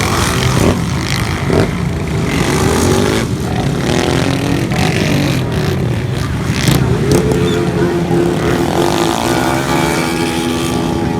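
Motorcycle engines running and revving, the pitch rising and falling in places. A steadier engine note holds from about eight seconds in.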